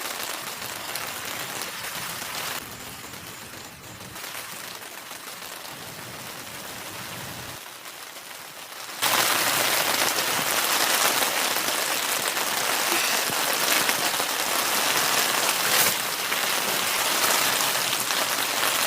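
Rain falling steadily, as an even patter. It steps in level a few times and turns suddenly much louder about nine seconds in.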